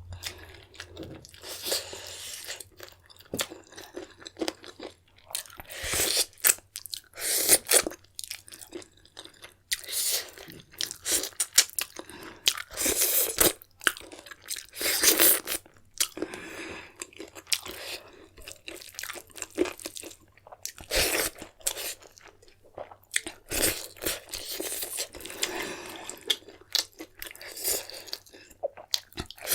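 A person chewing food close to the microphone, with irregular crunching bites.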